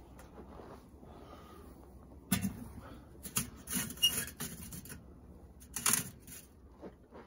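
Metal charcoal chimney starter, half full of charcoal, set down on a kettle grill's grate: clanking and rattling in two spells, about two seconds in and again near the end.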